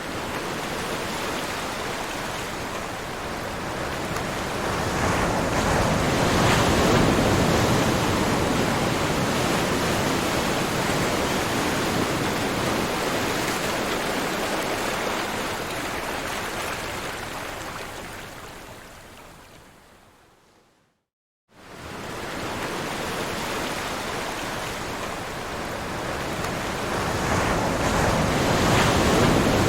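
Ocean waves breaking: a steady wash of surf that swells about six seconds in, fades out to silence around twenty seconds, then starts again.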